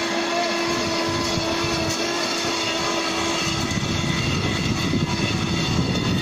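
Small engine of a walk-behind vegetable reaper running steadily as the machine cuts along a row of green onions. A steady hum fades out about halfway through and the sound turns rougher and lower.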